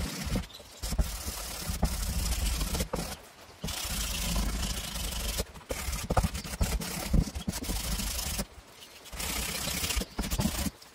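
Wooden door panel of a homemade camper shell scraping and rubbing in its frame as it is worked back and forth by hand, in repeated bursts of a second or two with short pauses between them.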